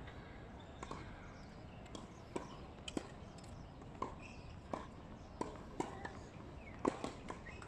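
Irregular sharp taps and knocks from tennis play on an outdoor hard court, roughly one or two a second and uneven in loudness, over a faint steady hiss.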